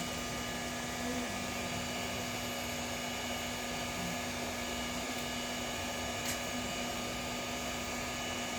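Hot air rework station blowing steadily with a constant hum, reheating a phone's power IC through flux paste.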